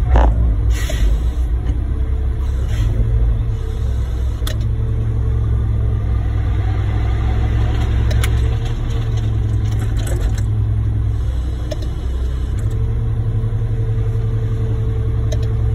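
Concrete mixer truck's diesel engine running steadily with a deep, loud rumble, with a couple of short hisses in the first few seconds.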